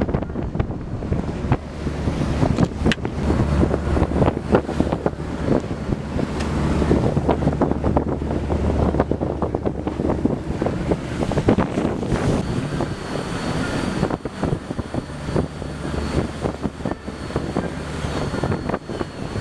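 Wind buffeting the microphone on a sportfishing boat at sea, over a steady low hum from the boat and the wash of the water, with scattered clicks and knocks throughout.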